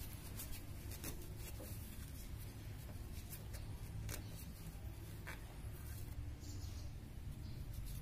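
Light handling noises, a few scattered small clicks and rustles, as small carburetor parts and a tissue are handled by hand. A steady low background rumble runs underneath.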